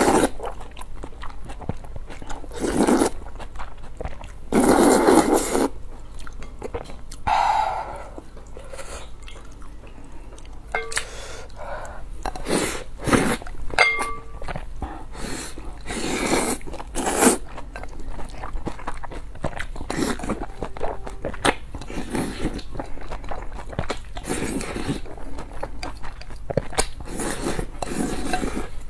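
Slurping and chewing of braised glass noodles with rice: repeated loud slurps a second or so long at irregular gaps, with quieter chewing and a few light clicks between them.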